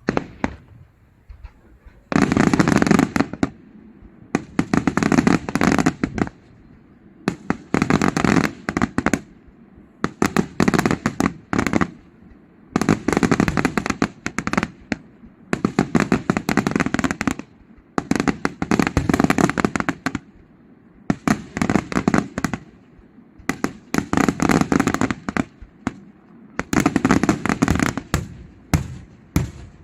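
Daytime fireworks: loud volleys of rapid crackling bangs, each lasting about a second, repeating roughly every two and a half seconds.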